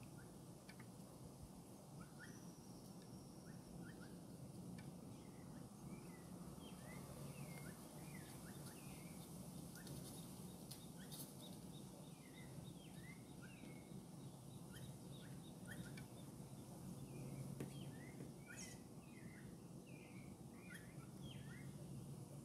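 Faint, scattered short chirps from small birds, many of them throughout, over a steady low background hum, with a couple of brief clicks.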